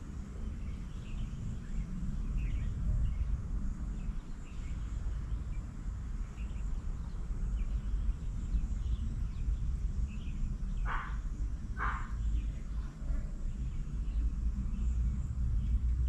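Outdoor rural ambience with a steady low rumble and scattered faint bird chirps. Near the end come two louder, short bird calls about a second apart.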